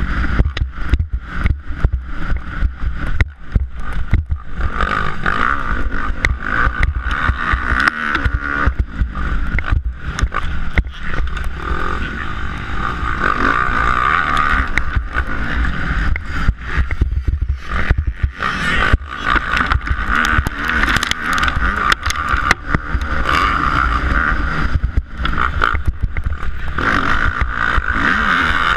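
Kawasaki KX250F four-stroke single-cylinder motocross engine running hard under racing throttle, its note rising and falling and dropping away briefly several times, mixed with heavy wind buffeting and crackling on the helmet-mounted microphone.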